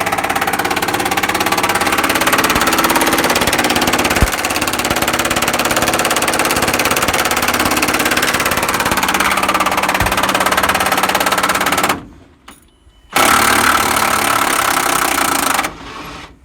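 Power tool running hard on a rusted, seized bolt in two long bursts, the first about twelve seconds, then a short second go after a brief stop; the work heats the bolt until it smokes.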